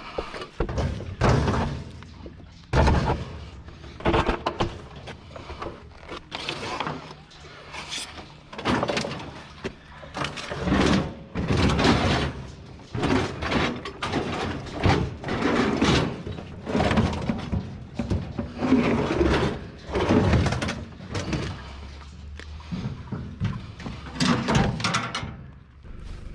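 Scrap being handled and loaded: a continuous run of thumps, clanks and slams, one every second or so, some sharp and loud.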